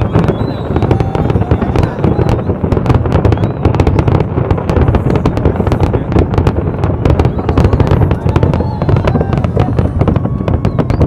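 Fireworks display: a dense, continuous barrage of aerial shell bursts and crackling, many reports a second.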